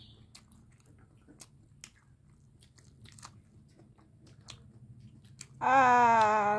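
Faint chewing and crunching of a mouthful of food with lettuce, with scattered soft clicks. Near the end, a loud, drawn-out voiced 'aah' from the person eating.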